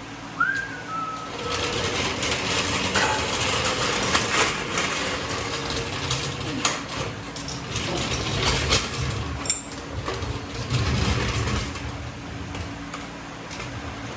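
Hand tools working on steel front-suspension parts: irregular metallic clicks, clinks and scraping, with a short squeak about half a second in.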